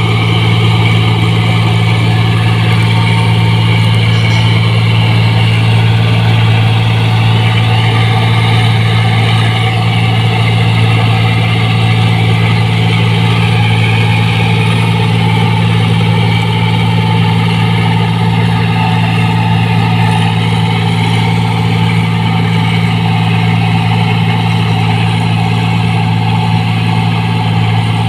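New Holland 1545 rice combine harvester running steadily as it cuts and threshes rice: its engine and machinery hold a constant, unchanging pitch.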